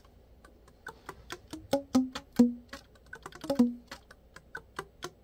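Yanagisawa S-901 soprano saxophone keys being fingered without blowing: a quick, uneven run of key clicks and pads slapping shut on the tone holes, starting about a second in. The harder slaps give short pitched pops that ring briefly.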